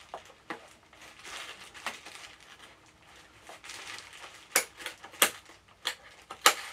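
Scissors snipping the ties that hold a toy part in its packaging, with plastic and cardboard rustling; four sharp snips come in quick succession in the second half.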